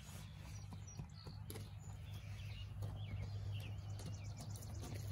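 Faint rustling and crackling of dry hay and loose rabbit fur as hands dig into a nest box, over a steady low hum, with a few faint bird chirps in the background.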